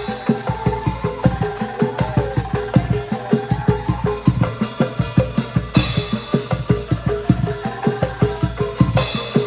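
Angklung ensemble with drums playing a song: tuned bamboo rattles sounding melody notes over a steady, quick drum beat of about four strokes a second.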